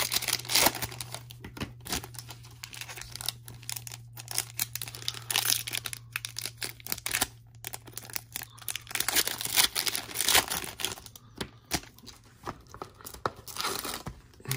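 Basketball card pack wrappers being torn open and crinkled, several packs in turn, in an irregular run of tearing and rustling.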